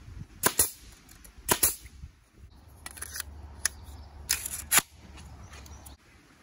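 Porter-Cable pneumatic brad nailer firing nails into a wooden frame: a series of sharp pops, about seven in all, several coming in close pairs, the loudest in the first two seconds.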